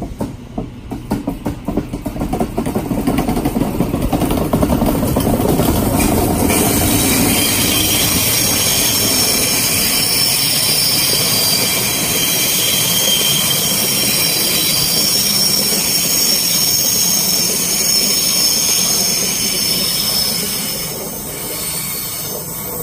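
Sydney double-deck electric suburban train running past the platform: wheels clicking over rail joints at first, building to a steady rumble with a high-pitched squeal from the wheels on the curve. The sound eases off near the end.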